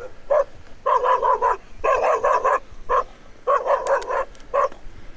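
A dog barking in quick runs of several barks, with short pauses between the runs.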